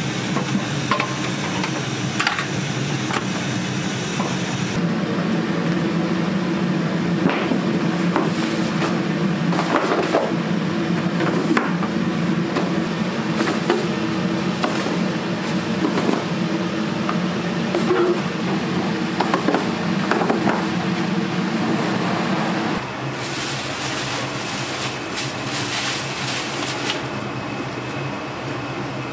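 Steady mechanical hum with scattered clicks and knocks over it. The sound changes abruptly about five seconds in and again a little after twenty seconds.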